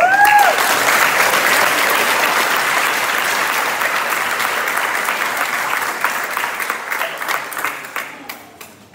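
Audience applauding in a large hall, opening with a short rising-and-falling whoop. The dense clapping thins after about six seconds to a few scattered claps near the end.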